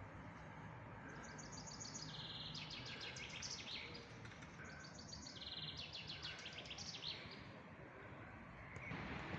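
A songbird singing two phrases of rapid, high repeated notes and trills, each about three seconds long, over a faint steady hum of background noise.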